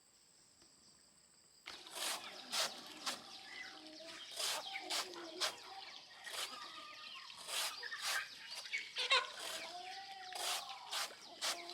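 A cricket trilling steadily in a high, thin tone. After about a second and a half it gives way abruptly to chickens clucking, among many sharp clicks and knocks.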